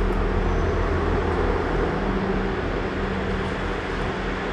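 Steady low mechanical hum over a continuous rushing noise: the ambience of a railway station platform.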